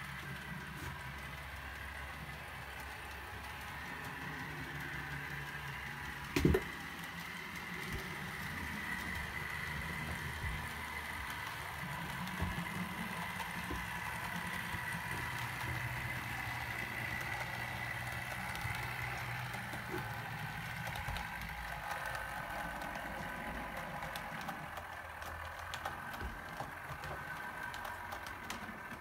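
Model trains running on a layout: a steady hum and whine from their small electric motors and wheels on the track, with one sharp knock about six and a half seconds in.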